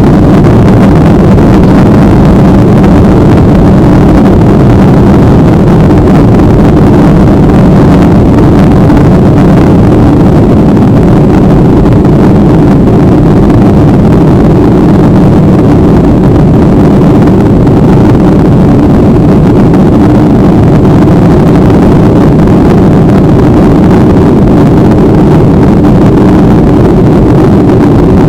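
Steady, loud drone of an airliner's engines and rushing air, heard from inside the passenger cabin, unchanging throughout.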